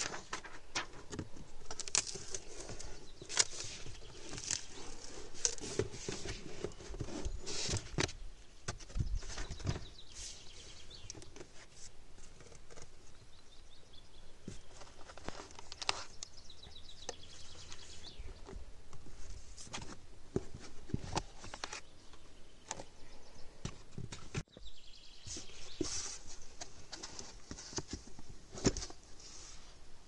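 Packaging being handled: plastic bags crinkling, cardboard flaps and a foam insert rustling, with scattered light clicks and knocks as parts are lifted out of the box.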